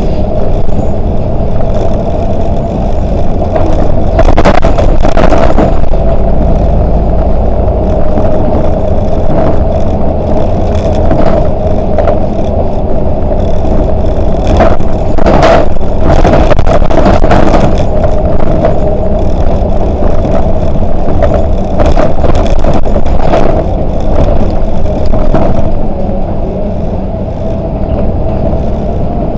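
Volvo 8900LE city bus driving, with a steady engine and drivetrain rumble and a steady whine. Sharp rattles and knocks come again and again throughout, as from fittings shaking over bumps.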